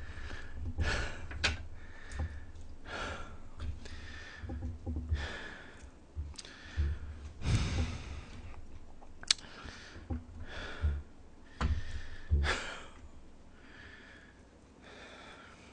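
Close-miked eating: a man chewing and slurping a mouthful of jjapaghetti noodles, with heavy breaths through the nose about once a second. A few sharp clicks, one near the start and one about halfway.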